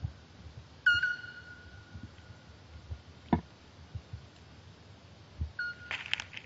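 A bird gives a clear, steady whistled note twice, each lasting about a second. There is a single sharp tap a little past halfway. Near the end a flat blade is pushed into the dry grass and soil over a spider burrow with a short crackling rustle.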